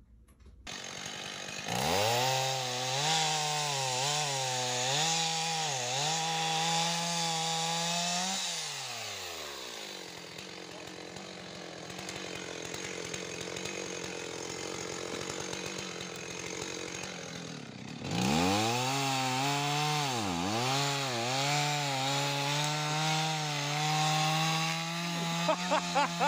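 Chainsaw revved at high speed in two long spells, its pitch dipping and recovering as the throttle is worked. Each spell winds down at the end, and the saw runs much quieter in between.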